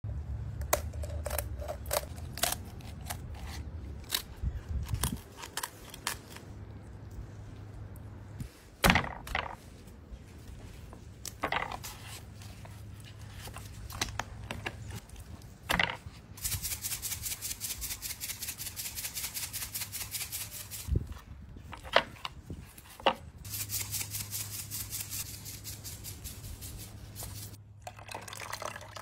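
Kitchen shears snipping and crunching through a raw chicken's backbone, a quick run of sharp clicks, then several loud single cracks and thuds as the bird is pressed flat. Two stretches of fast, even rattling come later.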